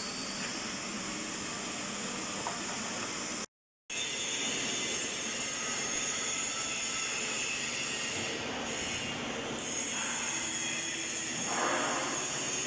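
Steady mechanical noise with a strong high hiss, dropping out to silence for a moment about three and a half seconds in.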